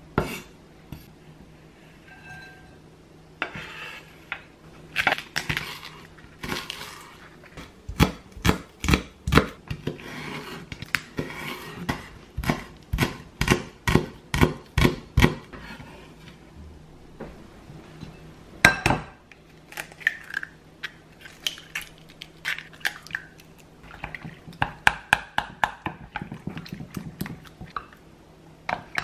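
Kitchen utensils clinking and striking against a bowl and dishes, with a run of even, regular strokes in the middle and scattered clinks before and after.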